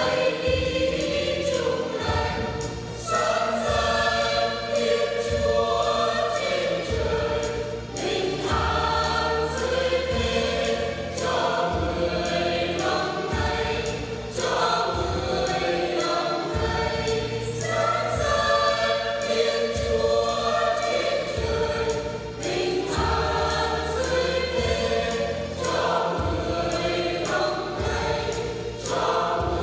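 Church choir singing a hymn in several voice parts over instrumental accompaniment, with a low bass line moving under the voices.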